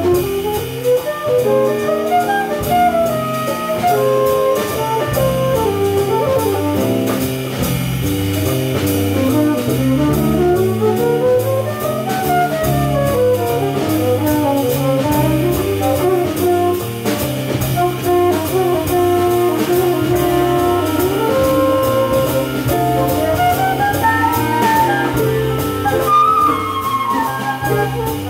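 Jazz big band playing, saxophones and brass over drum kit, with melodic lines running up and down in long scales over a low line that steps from note to note.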